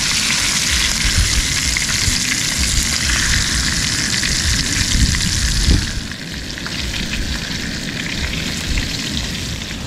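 Fish frying in hot oil in a pan, a dense sizzle that drops off suddenly about six seconds in to a softer hiss, with low wind rumble on the microphone throughout.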